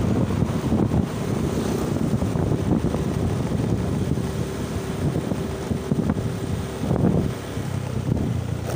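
Wind rumbling on the microphone of a moving motor scooter, with the scooter's engine and road noise running steadily underneath.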